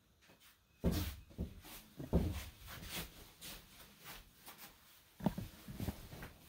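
Footsteps in tabi socks on tatami mats: a few soft thuds, with light swishing between them.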